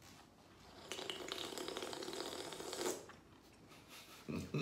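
Someone sipping a drink from an aluminium can close to the microphone: about two seconds of crackly, gurgling liquid sound.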